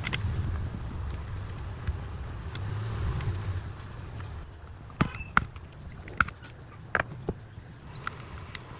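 Sharp clicks and taps of small repair tools against a phone's glass back and metal frame, about five of them, a few with a short ring. They come over a low steady rumble that fades out about halfway through.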